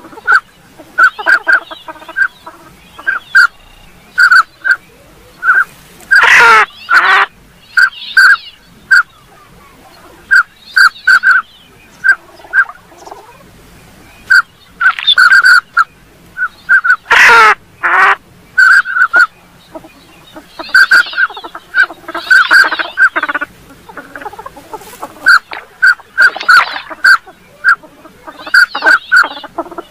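Northern pintail ducks calling: short whistled calls repeated in quick clusters of two to four, broken by a few longer, louder bursts of calling.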